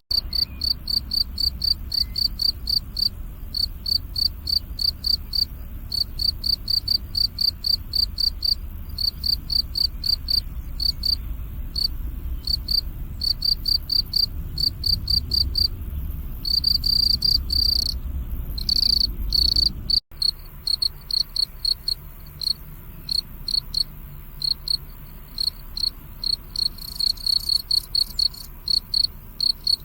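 Crickets chirping: a steady run of short, high-pitched chirps several times a second, running into longer unbroken trills twice just past the halfway point. A low rumble sits underneath until a brief dropout about two-thirds in.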